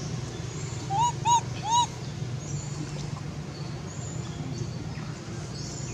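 Three short whistled animal calls in quick succession about a second in, each rising and falling in pitch, over a steady low hum.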